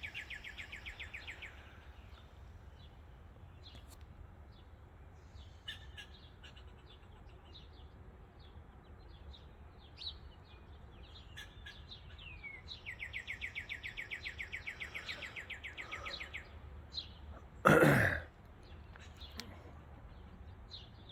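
Songbirds calling: rapid high trills of many notes a second near the start and again for a few seconds in the middle, with scattered short chirps between. Near the end a short, loud throaty noise like a throat clearing is the loudest sound.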